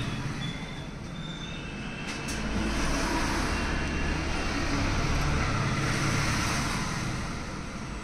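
Road traffic noise: a steady hiss with a low rumble that swells about two seconds in and eases off near the end.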